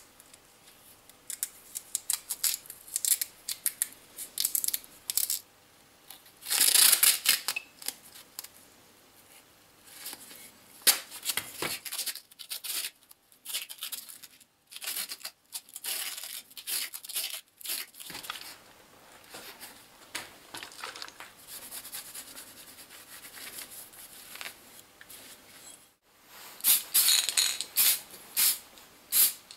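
Masking tape being pulled off the roll in rasping strips and torn while parts are wrapped, with handling rustle between pulls. Near the end there are short repeated hisses of an aerosol spray-paint can.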